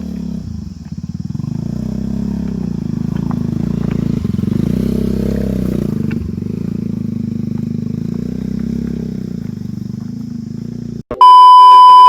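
Motorcycle engine running, its pitch shifting slightly a few times. Near the end it cuts out and a loud, steady electronic beep sounds for about a second.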